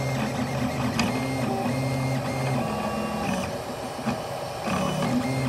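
Prusa i3 DIY kit 3D printer printing: its stepper motors sing in steady tones that jump up and down in pitch as the print head changes direction, with a short click about a second in.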